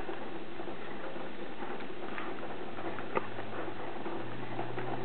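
Faint, scattered light ticks of chopped walnut pieces dropping from the fingers onto cake batter in a sheet pan, over a steady background hiss; a low steady hum comes in about three seconds in.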